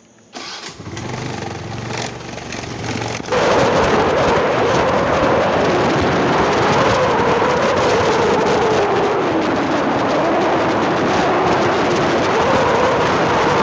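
Motorcycle engine running with a low steady note. About three seconds in, loud wind rush on the microphone sets in as the bike rides along, with the engine note rising and falling underneath.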